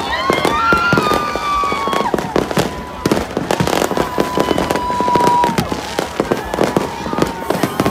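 Fireworks bursting and crackling close by, a rapid, dense string of pops and bangs. A held high tone sounds above them at times.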